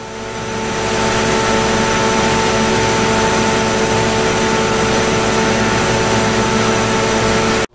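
Scania DI16 V8 marine diesel emergency generator running steadily off load while warming up, with its engine-driven cooling fan drawing air over the engine. It swells in over the first second, holds at a steady hum with several constant tones, and cuts off abruptly just before the end.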